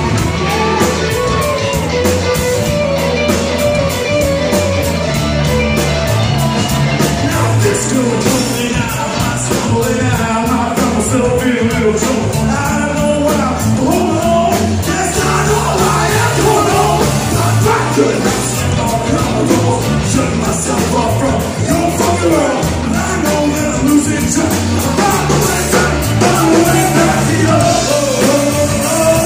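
A live funk-rock band playing loudly: electric guitars, bass guitar and drum kit, with singing.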